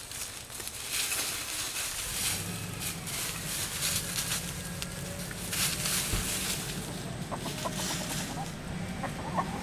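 Chickens clucking as they forage, with short clucks coming mostly in the last few seconds. Footsteps crunch through dry leaf litter early on.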